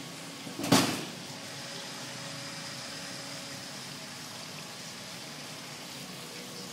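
Steady rushing background noise, with one loud, short bump about a second in.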